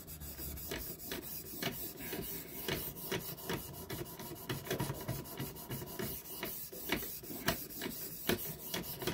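A whetstone on a guided-rod knife sharpener scrapes back and forth along the steel edge of a Cold Steel Leatherneck tanto blade. The strokes come in a steady, repeated run, about two a second.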